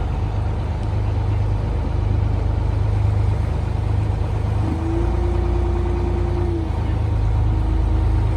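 Engine of a canal tour boat running steadily under way, a low drone heard on board. A steady higher tone is held over it for about two seconds in the middle, and briefly again near the end.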